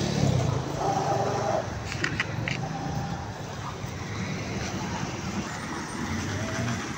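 Street noise with a motor vehicle's engine running, strongest at the start and fading soon after, and voices in the background.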